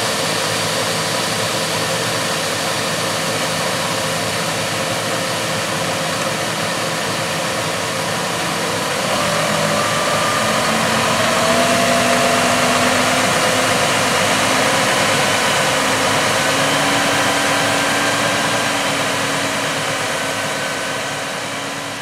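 Seed tender on a Mack R-series truck running steadily while its conveyor augers soybean seed into a Horsch SW600 commodity cart. The machinery drone gets a little louder and higher about nine seconds in.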